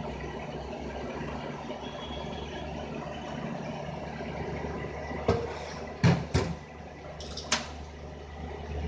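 Four sharp clicks and knocks, about five, six and seven and a half seconds in, from the open aluminium housing and lever of a Landi Renzo LPG reducer being handled. Under them is a steady low background hum.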